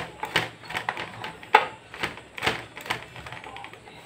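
Hands handling a monitor's circuit boards in their sheet-metal chassis: irregular clicks and light knocks, a few a second, the sharpest about one and a half seconds in, thinning out near the end.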